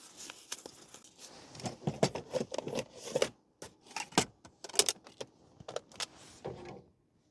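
Small objects being handled at close range: a rapid, irregular run of clicks, clinks and light knocks with some rustling in between.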